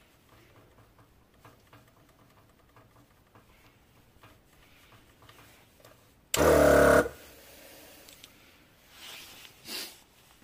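Twin-cylinder portable air compressor starting up and running for under a second before cutting off sharply. Two short, softer hisses follow near the end.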